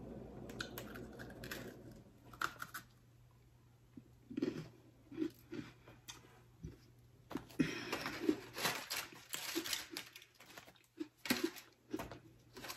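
A person biting into an Oreo cookie and chewing it, crunching in several short spells.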